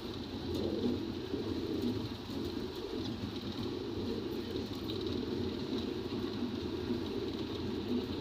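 Steady engine and road drone inside the cab of a moving large vehicle, a low even rumble with no breaks.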